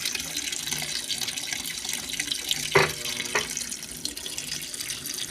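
Water pouring into the tub of a top-loading washing machine as it fills, a steady rushing hiss. Two short knocks sound about halfway through.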